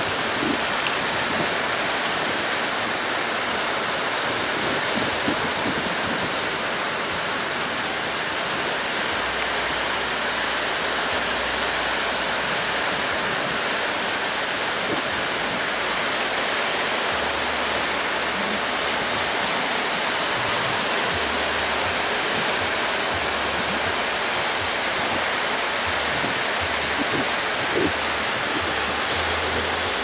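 Rough surf breaking: a steady, unbroken rush of waves.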